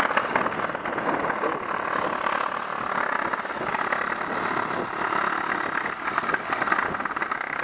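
Cordless reciprocating saw running steadily while its blade cuts through a hardwood branch.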